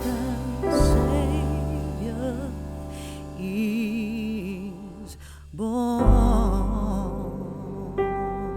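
Background music: a melody with heavy vibrato over deep sustained bass notes.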